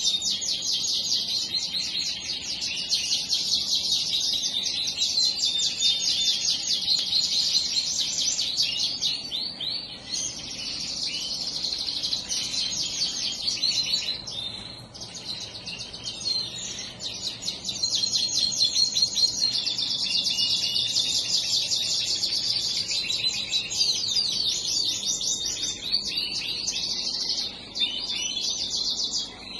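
A bird room full of small cage birds chirping and singing together: a dense, unbroken chorus of rapid high chirps and trills from many birds at once.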